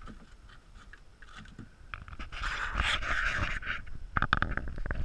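A pike thrashing in a landing net as it is swung out of the lake into a canoe: a rush of splashing water a little after two seconds in, then a quick run of knocks and thumps against the canoe near the end.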